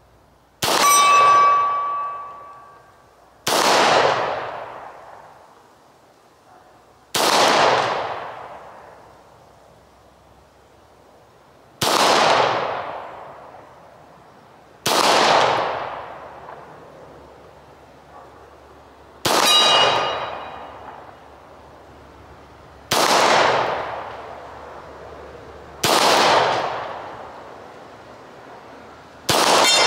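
Nine slowly paced shots from a Beretta 92FS 9mm pistol, a few seconds apart, each trailing off in echo. On three of them a steel target rings with a clear tone, the sign of a hit.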